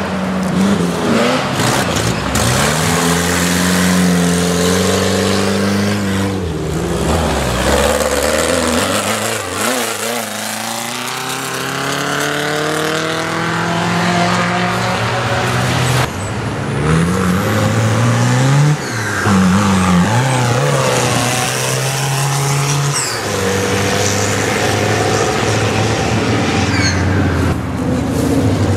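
Off-road race vehicles' engines revving hard and passing by one after another. The pitch climbs with each acceleration and drops as each vehicle goes past.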